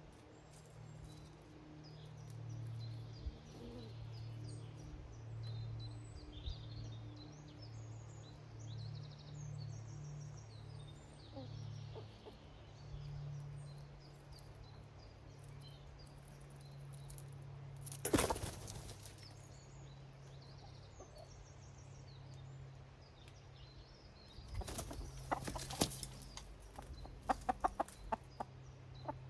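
Small garden birds chirping faintly at a feeder, with a loud flurry of wing flaps about two-thirds of the way through and more flapping and sharp clicks near the end. Hens cluck low in the background.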